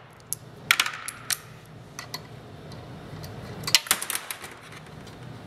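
Sharp metallic clinks of a socket wrench and small bolts being handled on a small engine being taken apart: a few single clicks in the first two seconds, then a quick cluster a little before four seconds in.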